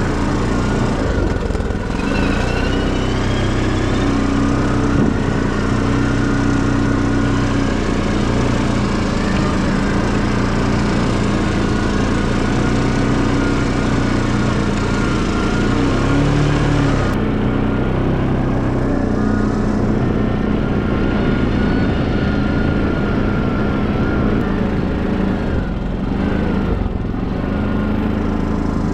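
ATV (quad bike) engine running under way, its note shifting up and down a few times as the throttle changes.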